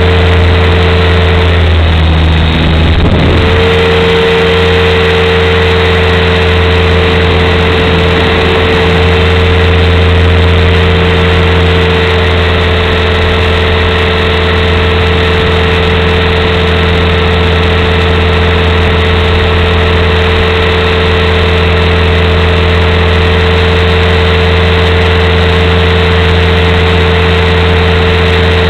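Align T-Rex 550 RC helicopter's motor and rotor, heard close up from the camera mounted on it: a loud, steady hum that dips briefly about three seconds in, then holds steady.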